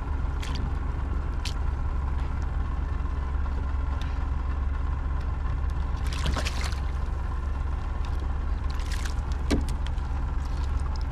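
Steady low rumble with water splashing against a kayak hull twice, about six and nine seconds in, plus a few light clicks.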